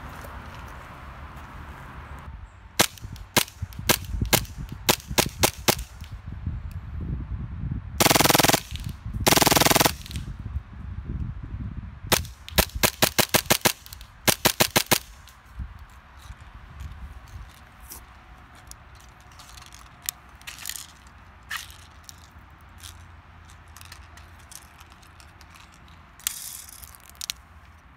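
Airsoft G18C pistol on an HPA conversion kit firing: single shots, then two short full-auto bursts about eight and nine and a half seconds in, then a quick string of shots, followed by faint scattered clicks.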